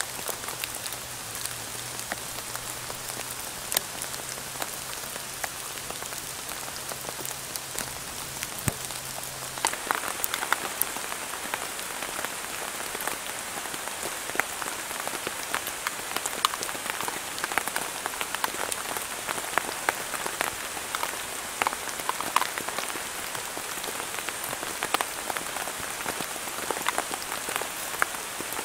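Steady rain falling on a tarp shelter and the forest around it, with individual drops ticking sharply. About ten seconds in, the drop hits become closer and crisper.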